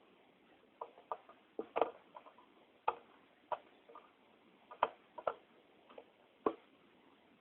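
Screwdriver and screws clicking and tapping against a hard drive's metal case as it is screwed back together: about a dozen sharp, irregular clicks, the loudest about two seconds in.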